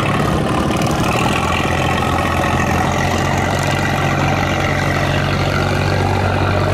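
Small river boat's engine running steadily, a low even drone that holds at one pitch.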